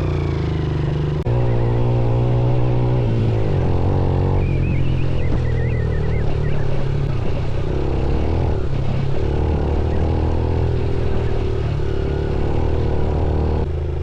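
Motorcycle engine running while riding, its pitch shifting up and down with throttle and gear changes. It gets louder suddenly about a second in and drops back near the end.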